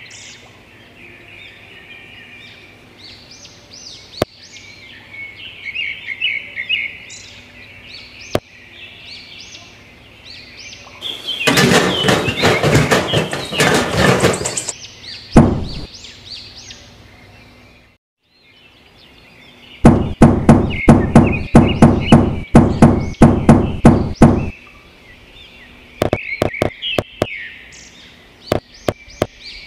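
Birds chirping throughout. About a third of the way in comes a loud rustling stretch a few seconds long. Later there is a quick run of sharp knocks, about four or five a second for several seconds, and near the end scattered clicks as small pebbles are set down on sand.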